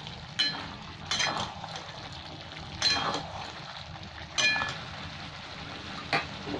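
A spatula stirring and scraping through rice in a metal kadai, knocking against the pan with about five sharp, ringing clinks spread a second or so apart.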